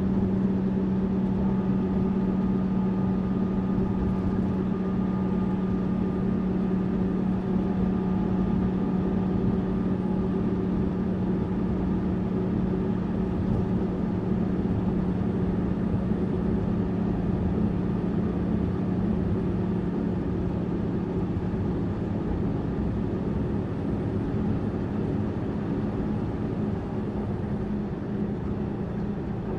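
Tourist bus running at a steady cruise: a constant low engine drone over road and tyre noise, with no change in pace.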